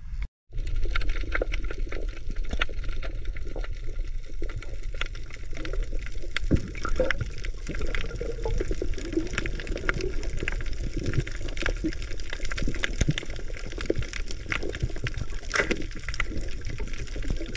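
Continuous water noise dotted with many small clicks and crackles, starting after a split-second gap at the very beginning.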